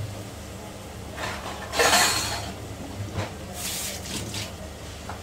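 Masala frying on a low gas flame in an aluminium pressure cooker: two short bursts of sizzling, the louder about two seconds in, over a steady low hum.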